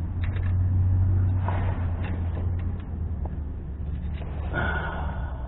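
A pick clicking and scraping lightly against metal inside an open Ford 8.8 rear differential, fishing for an axle C-clip, over a steady low rumble that is strongest in the first two seconds. A short hiss near the end.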